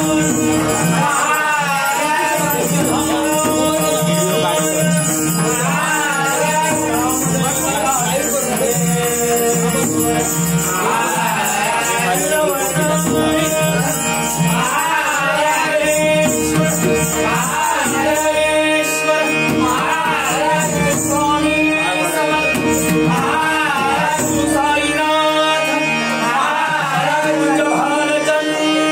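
Malvani bhajan: a singer's voice rising and falling in melody over steady held instrumental tones, with constant jingling hand percussion.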